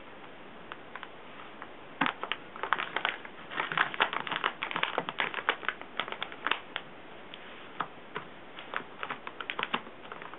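Scissors snipping and clicking against the cable's packaging: a rapid, irregular run of small sharp clicks that starts about two seconds in, comes thickest in the middle and thins out toward the end.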